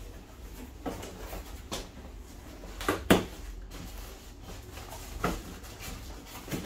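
Cardboard box being handled and opened: a few short knocks and scrapes as the box is shifted on the tabletop and its flaps are pulled back, the loudest a little after three seconds in.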